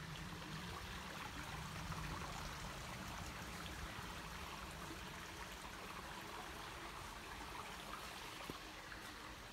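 A small creek faintly trickling and babbling over rocks, steady throughout.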